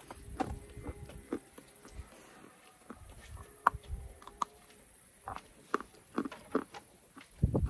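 A lump of natural chalk being bitten and chewed, giving a string of irregular sharp crunches, the loudest about three and a half seconds in. A low rumble comes in right at the end.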